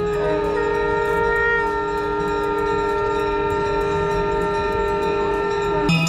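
Conch shells (shankh) blown in one long held blast for the Ganga Aarti, at least two together at different pitches. The blast cuts off near the end and bells start ringing.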